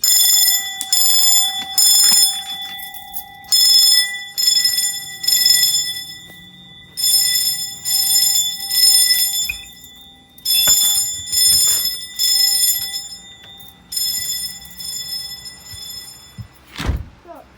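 Fire alarm signals sounding in a coded pattern: groups of three short blasts with a longer pause between groups, over a steady lower ringing tone. The signals grow fainter toward the end, and a single thump comes just before the end.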